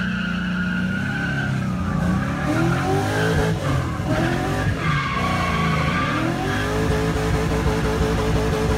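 Drift car's engine, heard from inside the cabin, revving up and down through a drift while the tyres squeal now and then; near the end the revs hold steady.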